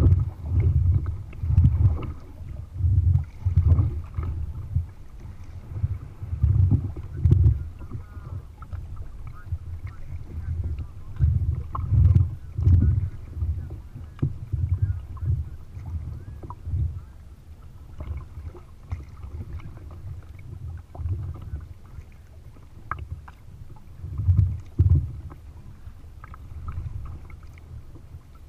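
Choppy water slapping against a kayak's hull as it is paddled, heard through the deck-mounted camera as irregular low thumps about once or twice a second, with light paddle splashes.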